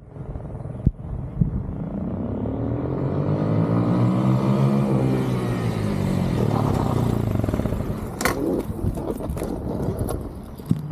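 Motorcycle engine running on a pass, growing louder with its note rising and then falling, loudest around the middle. A sharp knock comes about eight seconds in, followed by scattered clatter and scraping close to the ground.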